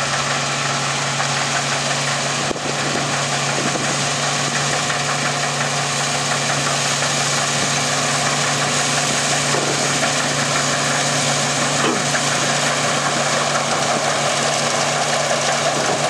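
New Holland CX8060 combine harvester running steadily as it cuts wheat: a constant low engine hum under a dense rushing machinery noise, growing a little louder as the machine comes closer.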